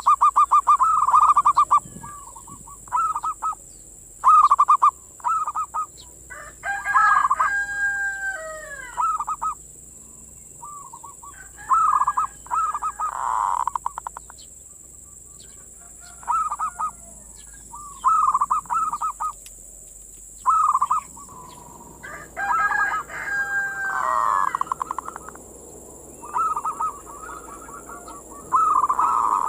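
Zebra dove (perkutut) in full song, known in Java as manggung: repeated phrases of fast, stuttering coos. This recording is used as a lure to attract wild perkutut. Twice a different call, with falling pitch, sounds over the coos.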